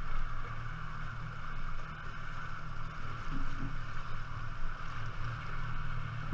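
Small aluminium boat moving slowly under motor: a steady low motor hum with water washing along the hull.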